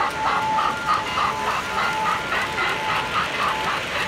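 O scale model steam locomotive's onboard sound system chuffing in a steady rhythm, about three chuffs a second, as the train runs around the layout.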